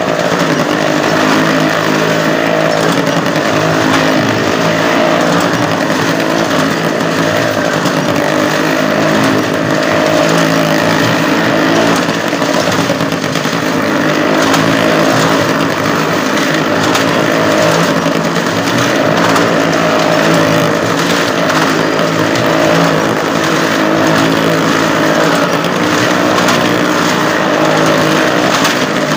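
Motorcycle engine running loudly and steadily as the bike circles the vertical wooden wall of a well-of-death drum, held at constant revs with no let-up.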